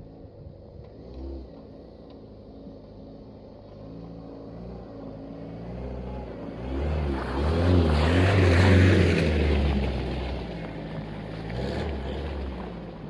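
Off-road 4x4's engine working and revving, its pitch rising and falling. It grows loudest about eight seconds in, with a rushing noise over it, then eases off.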